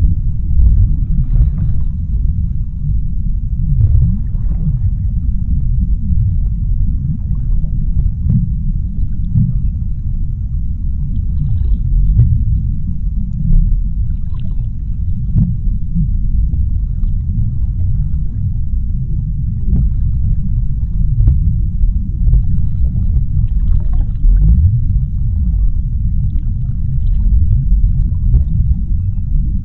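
Underwater ocean ambience: a steady deep rumble with faint, short crackles scattered over it.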